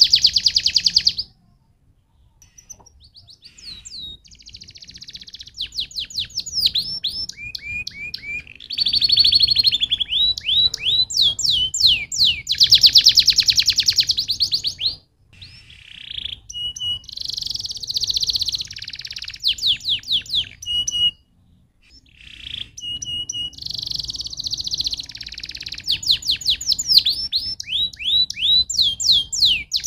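Domestic canary singing: long phrases of rapid rolling trills and quick downward-sweeping notes, with a few short steady notes, broken by brief pauses about a second in, around the halfway point and about two-thirds through.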